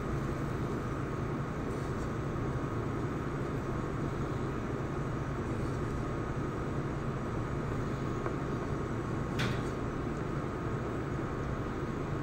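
Steady machine hum with a faint high-pitched whine running underneath, and a single light tap about nine and a half seconds in.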